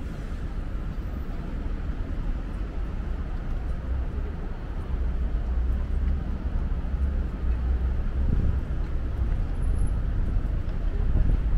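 City street traffic: a steady low rumble of passing vehicles with a light hiss, a little louder in the second half.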